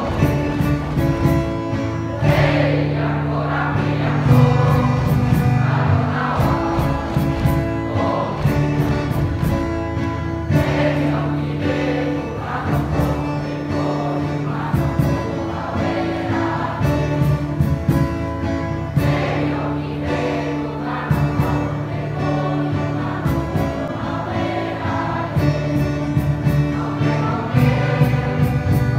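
Mixed school choir of boys and girls singing together over a musical accompaniment with a steady beat and sustained bass notes.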